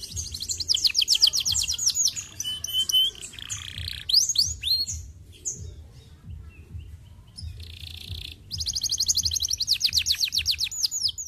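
Domestic canary singing: fast trills of rapidly repeated, down-sweeping notes, one run starting about half a second in and a longer one from about eight and a half seconds in, with varied shorter phrases and brief pauses between.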